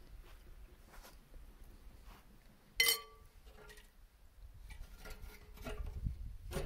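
A single sharp, ringing clink about three seconds in, among faint small knocks and rustles.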